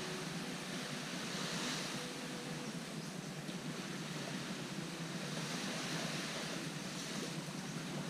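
Small waves washing onto a sandy beach: a steady wash of surf that swells gently a couple of times.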